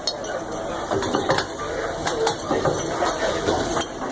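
Factory production-line machinery clattering, with irregular metallic clicks and knocks over a steady mechanical running noise.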